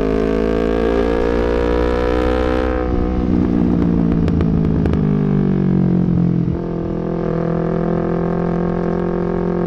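Yamaha MT-25's 250 cc parallel-twin engine under throttle: the revs climb for about three seconds, hold, and then the throttle comes off about six and a half seconds in, leaving the engine running steadily at lower revs.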